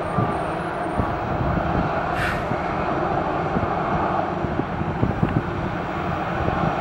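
Airbus A319 airliner taxiing, its jet engines at low power giving a steady, uneven rumble, with a brief hiss about two seconds in.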